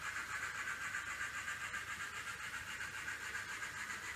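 N scale model trains running on the layout's track: a steady whir of small locomotive motors and wheels on the rails.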